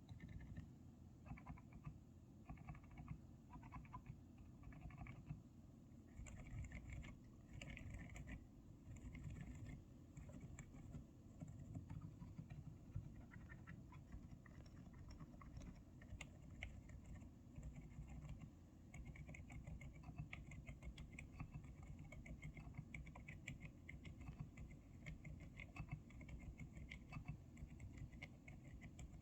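Typing on a Zuoya GMK67 mechanical keyboard with PBT keycaps and Outemu Silent Lemon V2 silent switches: quiet, soft keystrokes. They come in short runs at first, then as steadier, faster typing through the last third.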